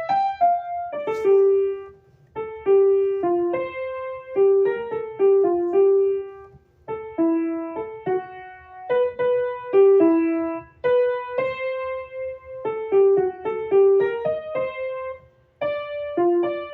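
Piano playing a simple melody, mostly single notes, in short phrases with brief pauses between them.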